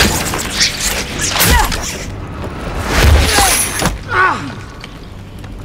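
Film action soundtrack: dramatic score under heavy impacts and thuds, with short strained cries from the fighters about one and a half, three and a half and four seconds in. It grows quieter near the end.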